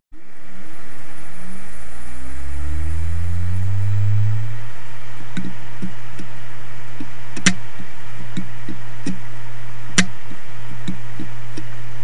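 Opened Western Digital desktop hard drive spinning up, its motor whine rising over about four seconds, then running steadily while the heads click: light ticks with a sharper click about every two and a half seconds. The clicking is the sign of unstable, dead read/write heads.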